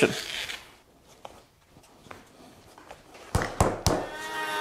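Faint handling clicks, then three sharp knocks about a quarter second apart as a plywood template is pressed and thumped down onto boards with carpet tape. Just before the end a router table's motor starts a steady whine.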